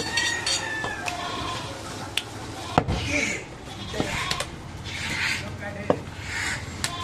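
A few sharp, scattered knocks of a steel butcher's cleaver against a wooden chopping block as a goat leg is cut, with voices talking in the background.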